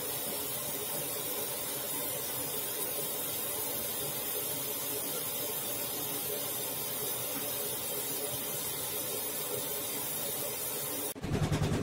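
Samsung VRT front-loading washing machine running mid-cycle: a steady hiss of water inside the machine. Near the end it gives way abruptly to a louder, lower rumble of the machine running.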